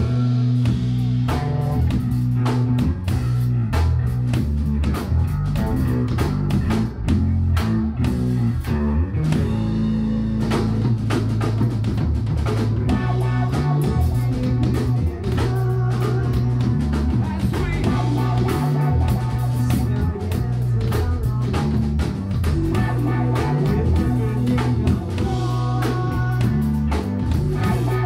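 Live band playing amplified: electric guitars and a drum kit, with a steady beat.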